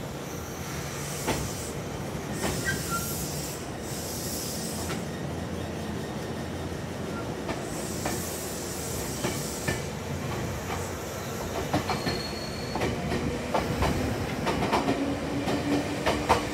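Kintetsu commuter train heard from inside the car as it pulls into a station, wheels squealing and clicking over rail joints. There are two spells of hissing, a few seconds in and again about eight seconds in, and the clicks come thicker near the end.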